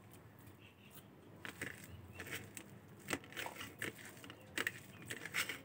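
Close-up eating sounds: short, irregular soft clicks and crunches of a mouthful of rice being chewed, in a string that picks up about a second and a half in.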